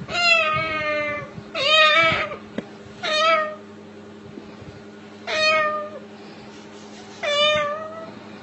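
Five cat-like meows in a row, each lasting about half a second to a second, over a faint steady hum.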